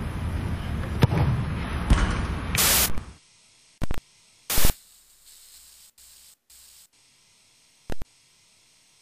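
Soccer ball kicked twice, two sharp thuds about one and two seconds in, over steady wind noise on the microphone. After a short burst of hiss the sound drops to near silence, broken by a few brief bursts of static-like noise.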